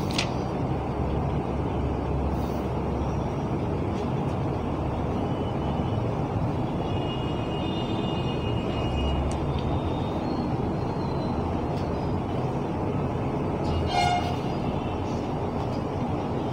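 Steady low background rumble, with a few faint high tones around eight seconds in and a brief one near fourteen seconds.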